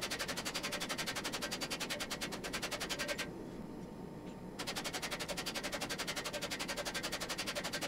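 Power hammer pounding a white-hot folded steel billet in a rapid, even run of blows, about ten a second, setting the forge weld between the layers. The blows break off for about a second and a half a little over three seconds in, then resume.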